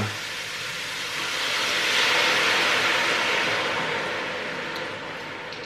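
Red wine poured into a hot pot of frying vegetables, hissing and sizzling as it hits the pan. The hiss swells about a second in and slowly dies away.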